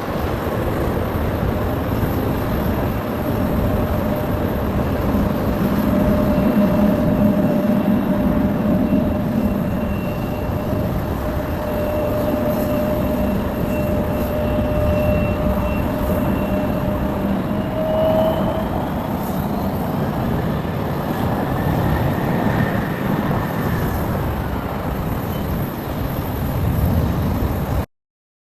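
Boeing 777-300ER's GE90 turbofan engines running: a loud rush of noise with a steady whine that rises in pitch about 18 seconds in. The sound cuts off suddenly near the end.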